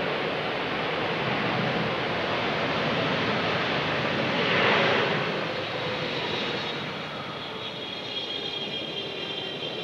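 Jet noise from a landing Boeing 777-300ER's GE90 turbofans: a steady roar that swells to its loudest about halfway through, then falls away, leaving a high whine.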